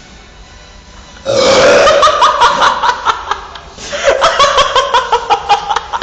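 A man lets out a loud, drawn-out belch, starting suddenly about a second in and going on, with a brief dip, to the end, after chugging a drink fast.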